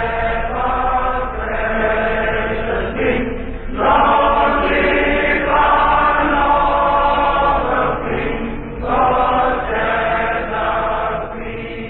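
Choral chanting by several voices in sustained sung phrases, heard as a radio broadcast with a narrow, muffled sound and a low hum underneath, likely the station's closing music after its sign-off.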